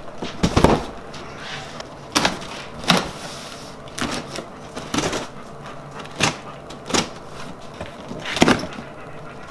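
A long cardboard box set down on a wooden workbench with a thump, then scissors cutting through packing tape and cardboard in a series of sharp snips, cracks and rustles, about one every second.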